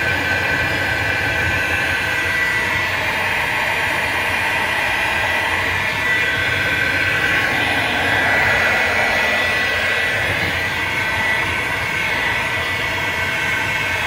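Milwaukee electric heat gun running steadily, its fan blowing with an even rush and a high whine, as it melts frost off a refrigerator's iced-up freezer evaporator coil.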